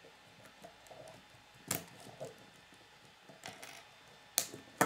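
Plastic K'nex rods and connectors clicking and snapping as they are fitted onto a model: a handful of short sharp clicks, the loudest about a second and a half in and two close together near the end.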